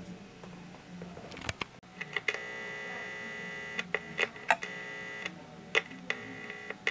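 Steady electronic buzz and sharp clicks from the speaker of a vintage Oremaster scintillation counter's amplifier. The buzz comes on about two seconds in, cuts out briefly about five seconds in and returns near the end, with a faint low hum underneath. The amplifier is plainly live, but no regular counting ticks are heard.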